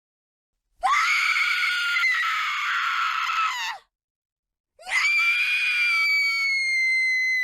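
A woman screaming in terror: two long, high-pitched screams about a second apart, the second held on a steady pitch.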